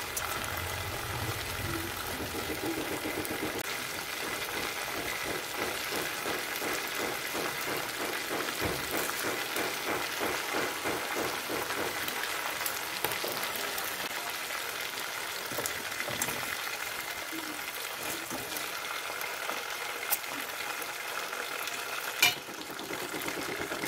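Chicken adobo pieces frying in oil in a stainless steel pot, a steady sizzle and crackle while they are turned with slotted metal tongs. There are a few sharp clacks, the loudest near the end.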